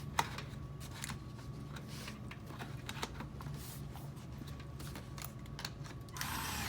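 Light clicks and rustles of a scanner unit's cover being pushed back into place and handled, with one sharper click just after the start and a brief scrape near the end.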